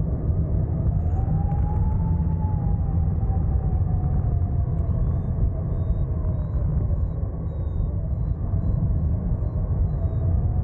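Airflow over a hang glider in flight: heavy wind buffeting on the wing-mounted microphone, with a steady humming tone that rises a little about two seconds in and slowly falls back.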